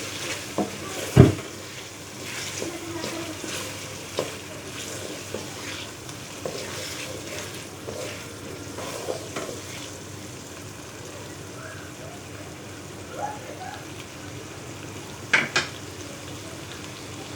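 A spoon stirring and scraping thick cooked dal in a pot, over a low sizzle of oil. There is a sharp knock about a second in and two quick clinks near the end.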